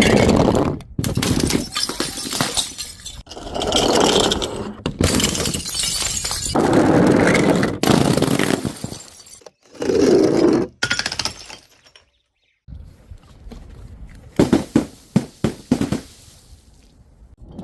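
Glass bottles and jars breaking and shattering, one after another in a string of short separate clips with abrupt cuts between them. Near the end comes a quick run of short sharp knocks.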